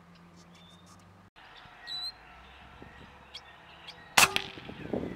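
Small birds chirping now and then, then a single sharp, loud crack about four seconds in: the shot of a Benjamin Discovery .22 precharged pneumatic air rifle.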